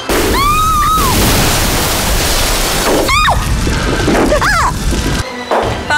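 A sudden explosion blast whose noise runs on for about five seconds and then cuts off abruptly. A woman screams over it right at the start and cries out twice more a few seconds in.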